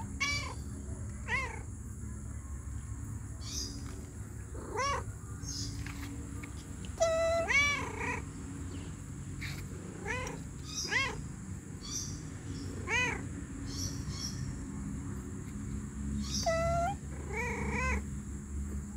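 Domestic cat meowing over and over: about nine short meows, each rising and falling in pitch, some coming in quick pairs.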